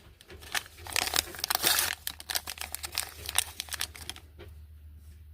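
Crinkly plastic packaging rustling and tearing as it is unwrapped by hand: a dense run of quick crackles, loudest in the first couple of seconds, then thinning out near the end.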